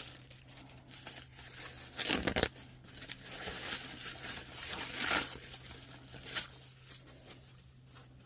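Packaging crinkling and rustling as a handbag is unwrapped and handled, with the loudest rustle about two seconds in and a few shorter crackles after.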